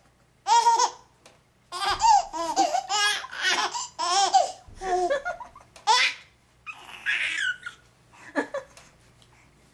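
A four-month-old baby laughing hard in a string of short, high-pitched bursts, with a breathy squeal about seven seconds in, then quieting near the end.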